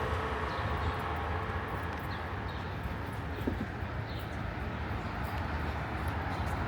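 City park ambience: a steady low rumble of traffic with a few faint, short, high bird chirps over it.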